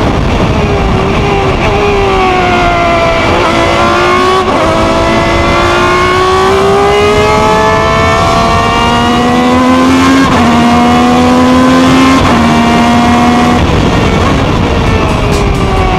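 Ferrari 333 SP's V12 engine at racing revs, heard on board. The pitch climbs steadily over several seconds, drops suddenly in steps about ten to twelve seconds in, then falls away near the end as the car slows.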